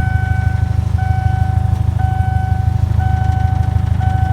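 Rat rod's engine idling with a heavy, steady low rumble while an electronic warning beep repeats about once a second; engine and beeping both cut off suddenly at the very end.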